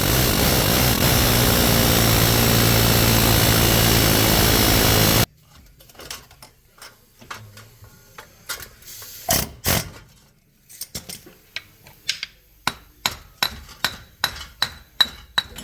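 A power tool runs loudly and steadily for about five seconds, then stops suddenly. A string of sharp metallic knocks follows as the seized hub bearing assembly is worked out of the knuckle, speeding up near the end into a run of ringing blows about three a second.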